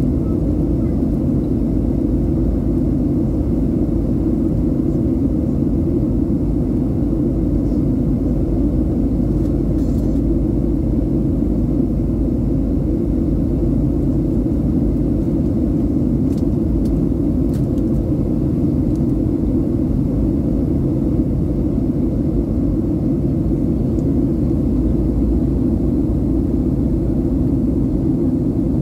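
Steady low drone of cabin noise inside a Boeing 737-700 in flight, heard from a window seat: its CFM56-7B jet engines and the airflow over the fuselage.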